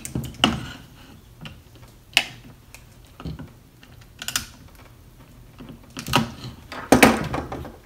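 Irregular light clicks and clacks of small plastic and metal parts being handled, a few louder ones about two seconds in and near the end, as a battery's wired terminals are fitted into a cordless drill's housing.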